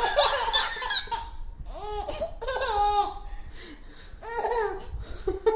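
A baby laughing in several short bursts, with pauses between them.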